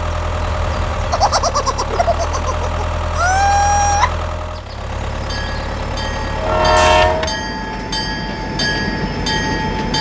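A steady low engine hum with a few chirpy squeaks and a short rising toot, the hum cutting off about halfway through. Then a train horn blows briefly near seven seconds, and a train runs on with a steady tone and a regular clicking about twice a second.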